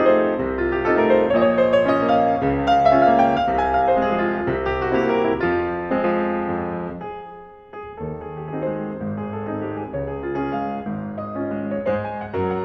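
Solo grand piano playing a waltz. About two-thirds through the playing thins out to a brief pause, then picks up again more softly.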